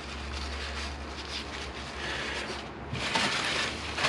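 Paper tissue rustling and rubbing against a motorcycle brake caliper as it soaks up brake fluid seeping from a cracked banjo bolt, with louder handling noise about three seconds in.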